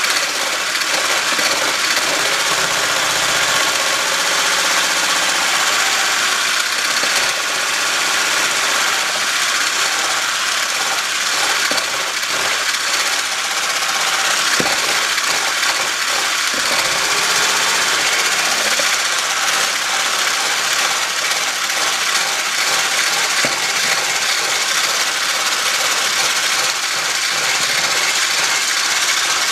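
Electric immersion blender running steadily as it whips cream in a plastic tub.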